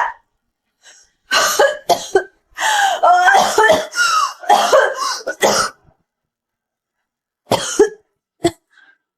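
A person's voice in several loud, short bursts without words, heard by the tagger as coughing, then two brief bursts near the end.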